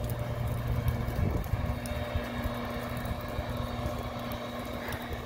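Gas-powered leaf blower running at a steady drone, its engine note holding constant without revving.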